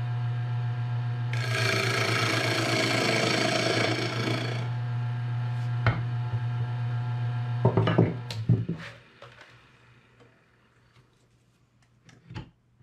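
Harbor Freight benchtop mini wood lathe running with a steady motor hum while a turning tool hollows a small spinning bowl, a hissing scrape of the cut lasting a few seconds. A few sharp knocks follow, then the lathe is switched off about two-thirds of the way through, leaving only a light knock near the end.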